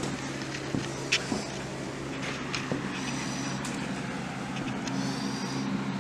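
Steady low hum of an electric motor running, with a few light clicks and handling knocks.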